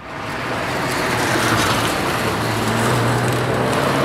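2013 Ford Focus ST's 2.0-litre turbocharged four-cylinder engine running hard through an autocross course. The sound swells over the first second into a steady low engine note under a broad rushing noise.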